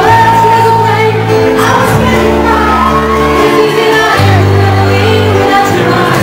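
Live band playing, with a singer's voice over long held chords and bass notes that change every second or two.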